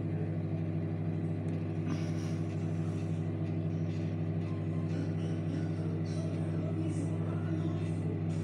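Kenmore microwave oven running, a steady low electrical hum with its fan while food heats inside.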